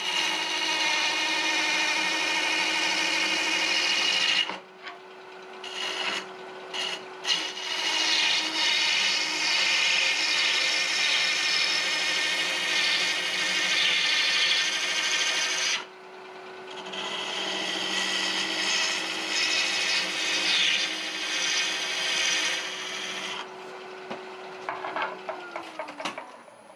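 Turning tool cutting into a pale wood blank spinning on a Laguna wood lathe, a loud scraping shear in three long passes with short pauses, over the lathe motor's steady hum. Near the end the cutting stops and the motor winds down, its hum falling in pitch as the lathe comes to a stop.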